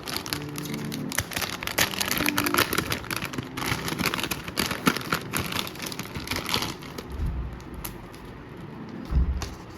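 Packaging and accessories being handled close to the microphone: rapid crinkling, rustling and small clicks, with a couple of low thumps near the end.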